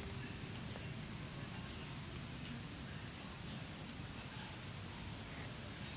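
Insects chirping in short, evenly repeating high-pitched pulses, fairly quiet.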